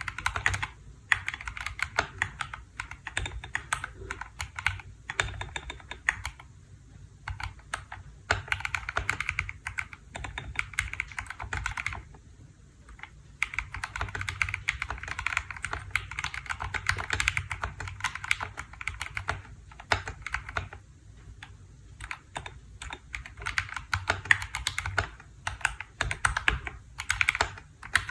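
KBDfans D65 mechanical keyboard being typed on: fast runs of keystrokes broken by short pauses.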